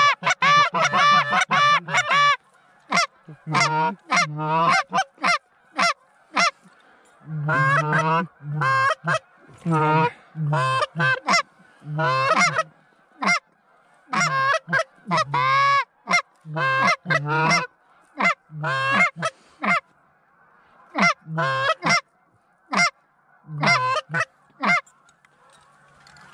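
Goose honking: loud, clear honks and clucks in quick runs, packed tightly for the first two seconds or so, then in short bursts of a few calls with brief pauses between them.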